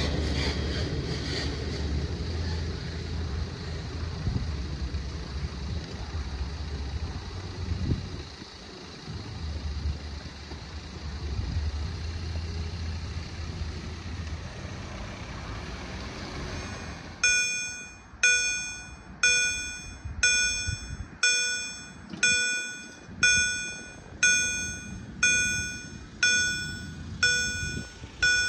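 A low vehicle rumble fades away. About 17 s in, the level crossing's electronic warning bell starts ringing, about one ding a second, each dying away before the next, to warn of an approaching train.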